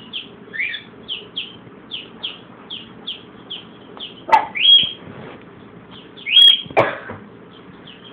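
Blue-and-gold macaw giving two loud, harsh calls, about four and six and a half seconds in, each ending in a high held note. Under them runs a steady string of short high chirps, about three a second.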